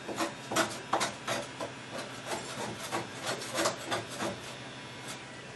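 A scraper dragged repeatedly over heat-softened tar sound-deadening material on a steel car floor pan, a quick series of scrapes about three a second that stops after about four seconds. A steady heat-gun hum runs underneath.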